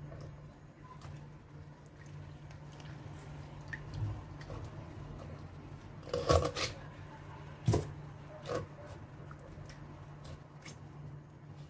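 Kitchen knife cutting the head off a small common pandora on a wooden cutting board: soft wet cutting and small clicks, with a few sharp knocks of the blade through the bone onto the board around the middle. A steady low hum runs underneath.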